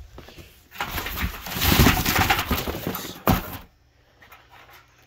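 Cardboard and packaging rustling and scraping for about three seconds as an item is handled out of its box, ending with a sharp knock, then a few faint handling clicks.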